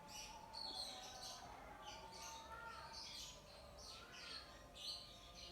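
Faint mouth sounds of someone chewing food, with small birds chirping in the background in short, irregular bursts.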